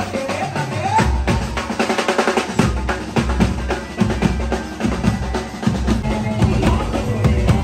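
Live garba band music driven by a drummer playing fast rolls and fills on toms, snare and cymbals over a heavy low beat.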